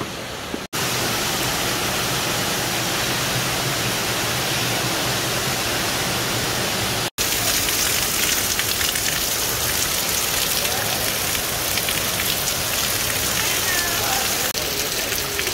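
Steady rush of waterfalls and cascading water. It cuts out sharply twice, under a second in and about seven seconds in, and is a little louder after each break.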